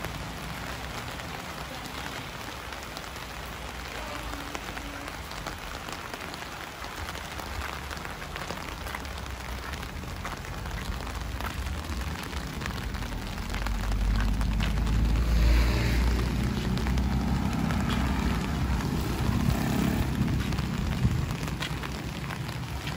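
Steady rain falling, with many small drop-ticks through the hiss. About two-thirds of the way in, a louder low rumble joins and holds to the end.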